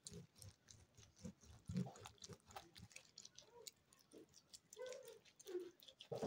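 Faint wet, gritty rubbing of hands being scrubbed with a sugar, lemon and olive-oil scrub, with many small crackles and squishes.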